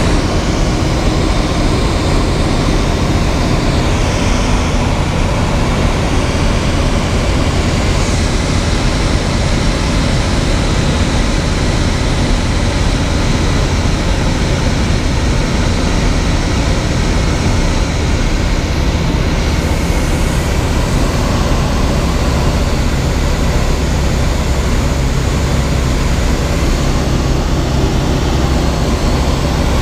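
Single-engine ultralight aeroplane's propeller engine running steadily in cruising flight, heard from inside the cockpit as a loud, even drone.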